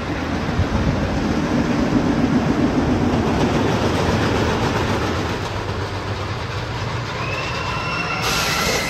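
Wooden roller coaster train running over its wooden track and structure: a loud, steady rumble and clatter. Thin high-pitched tones come in near the end.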